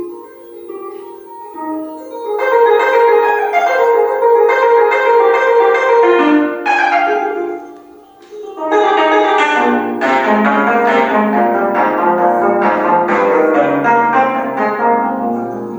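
A 25-string gayageum, the Korean plucked zither, played in fast, dense runs of notes. It thins out about seven seconds in, then resumes with lower bass notes under the runs and fades slightly near the end.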